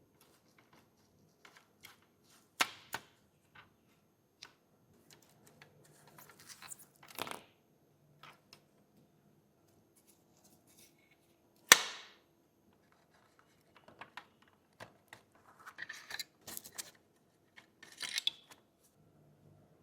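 Handling of a small die-cast model car and hand tools: scattered clicks and taps of small metal and plastic parts, a few short scrapes, and one sharp knock about midway, the loudest sound.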